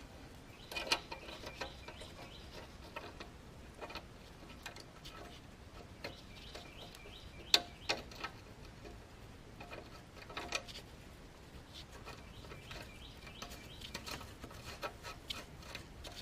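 Scattered sharp metallic clicks and clinks of a wrench and socket working the nuts of a new sway bar link, with one louder clank about seven and a half seconds in.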